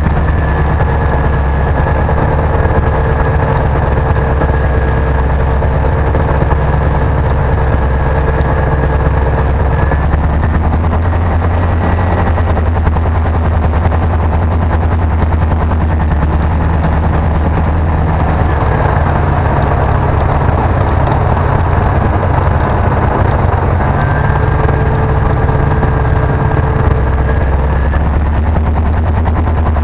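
Piston engine and propeller of a single-engine light aircraft droning steadily, heard inside the cockpit. The note shifts slightly a few times, and a faint higher whine drops out about a third of the way through and returns near the end.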